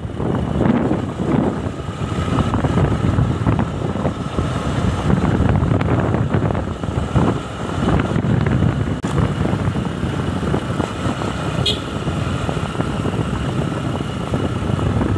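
Motorcycle running along a road at riding speed, with wind buffeting the microphone as a heavy, unsteady rumble over the engine.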